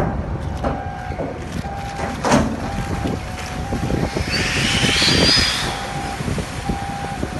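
Floating steel shipping container going under beside a concrete quay wall: a loud rush and hiss of air escaping and water churning about four to six seconds in, as it sinks. Under it a steady low rumble with a knock about two seconds in and a faint beeping tone repeating about once a second.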